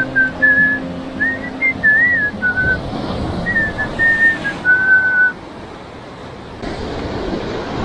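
A person whistling a tune in short wavering phrases, stopping about five seconds in, over the steady wash of sea surf.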